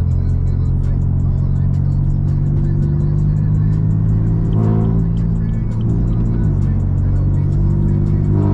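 BMW M4's twin-turbo inline-six, fitted with a mid-pipe exhaust, running under way and heard inside the cabin as a steady low drone. It drops in pitch about six and a half seconds in, with music playing over it.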